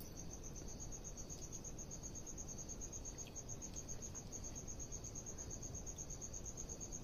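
A cricket chirping in a steady, rapid, high-pitched pulse train.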